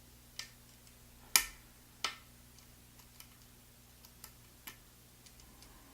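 Small sharp clicks from a hook pick lifting pin 6 of an ASSA Twin Combi lock under tension: the clicks of the pin setting. Three clear clicks in the first two seconds, the loudest about a second and a half in, then a few fainter ticks.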